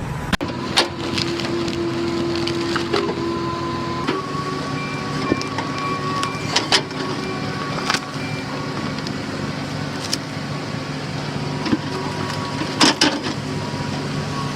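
Machinery running steadily, with sharp clicks and knocks now and then.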